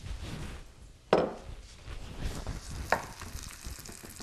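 Wooden spatula stirring sliced onion in a nonstick pan, knocking sharply against the pan twice, loudly about a second in and more lightly near three seconds.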